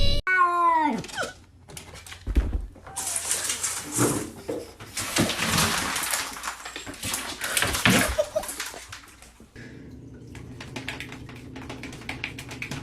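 A pet's short cry that falls in pitch, then several seconds of scuffling, rustling noise, and near the end a quieter steady low hum with light ticking.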